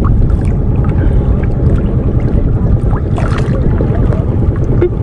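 A motorized bangka's engine running with a steady low rumble, with a short hiss about three seconds in.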